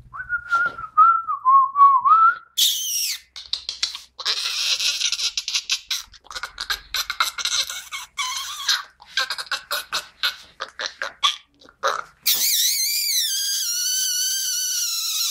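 Someone whistling a wavering, up-and-down tune. In between, a miniature pinscher puppy's claws make stretches of rapid clicking and scuffling on the tile floor. A loud wavering whistle returns near the end.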